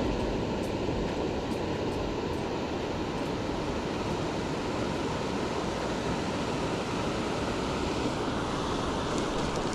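Steady rushing of flowing river water, an even wash of noise that holds at one level throughout.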